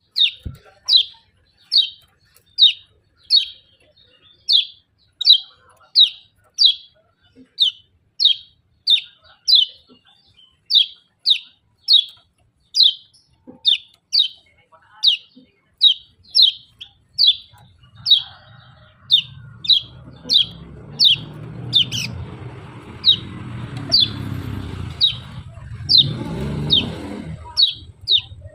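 Kecial songbird repeating its short, high 'ciak' chirp, about one every three-quarters of a second in an even series. From about two-thirds of the way through, a low rumble sits under the chirps.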